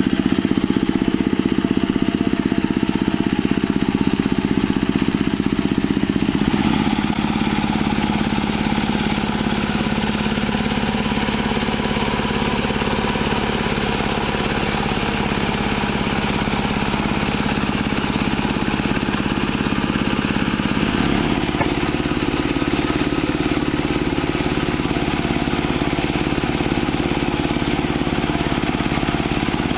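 Single-cylinder diesel engine of a two-wheel hand tractor running steadily under load while it tills wet paddy mud. The engine note shifts abruptly about six seconds in and again about twenty-one seconds in.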